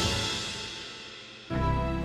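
Background music: one passage fades away, then a new one starts abruptly about one and a half seconds in on a deep, steady bass.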